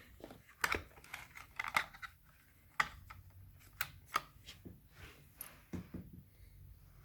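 The drivetrain of an FTX Kanyon RC crawler gives irregular sharp clicks and knocks over a faint low hum. The owner blames this grinding on the differentials, mostly the front one, on a truck that is new out of the box.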